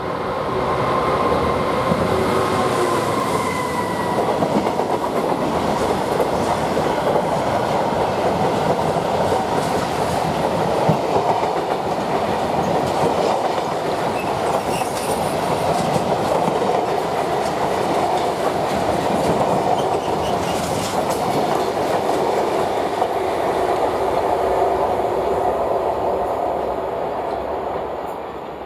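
A train passing close by, wheels running and clattering over the rails in a loud, steady rush for nearly half a minute. A faint high ringing fades in the first few seconds, and the sound dies away near the end.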